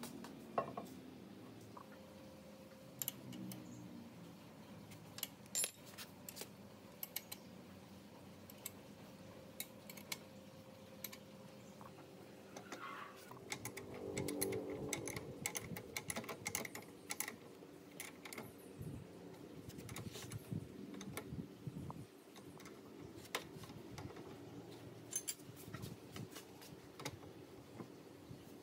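Scattered light metallic clicks and clinks of a hex key and cast-iron parts being handled and fitted on a restored woodworking planer's feed roller assembly. A busier stretch of knocks and scraping comes about halfway through.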